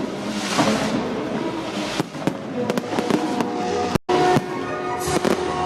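Fireworks going off with repeated sharp cracks and hissing bursts, over music. The sound cuts out briefly about two-thirds of the way in.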